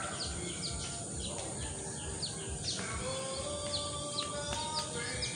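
Small birds chirping: a string of short, high, down-slurred chirps, about two a second, over a steady background hiss.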